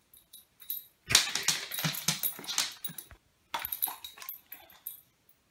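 Boxer dog crunching dry kibble pellets: a run of sharp crackling crunches about a second in, then a second, shorter bout of chewing.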